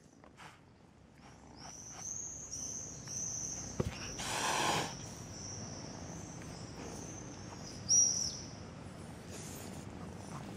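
Small birds chirping: a run of short high chirps for a couple of seconds, a brief louder sound about four seconds in, and one sharp chirp about eight seconds in.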